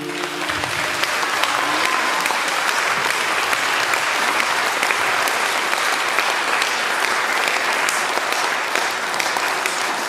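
Audience applauding steadily, a dense wash of clapping; the last held note of the song fades out in the first half-second as the applause takes over.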